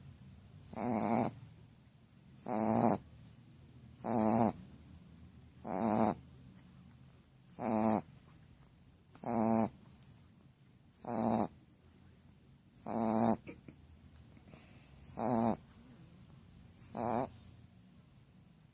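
Sleeping Shar Pei dog snoring: short snores, about one every second and three-quarters, ten in all, evenly paced.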